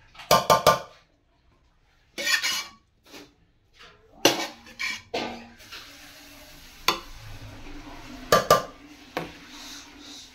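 Metal spoon clinking and scraping against a metal cooking pot while spreading fried vegetables over a layer of rice, in irregular sharp strikes, with a loud cluster of about three in the first second.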